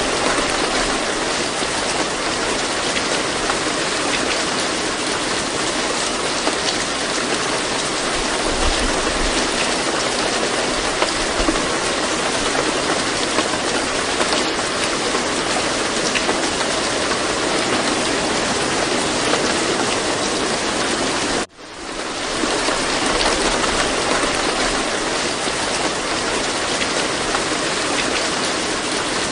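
Steady rain, a continuous even hiss of falling water. It cuts out for a moment about three quarters of the way through and comes straight back, like a recording looping.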